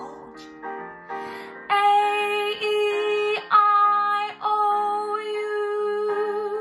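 Female voice singing the vowels A, E, I, O, U one after another, each held on about the same note, as a vocal warm-up exercise over a backing track.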